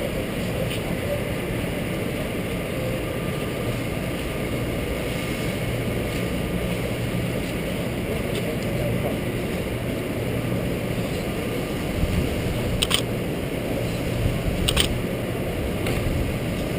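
Steady low rumble of a huge hall's ambience, a constant background of building machinery and distant activity, with a few sharp clicks late on.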